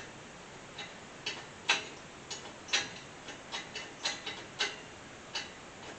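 Small hard metal pieces clicking and clinking irregularly, about a dozen light knocks, the loudest near the two-second mark: scrap parts being picked through by hand.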